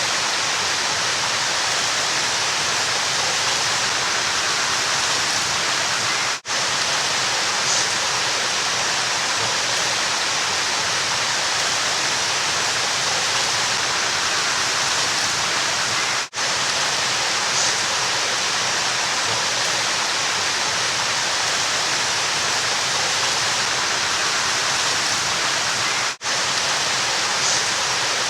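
River water rushing in a steady, even hiss. It cuts out for an instant three times, about ten seconds apart.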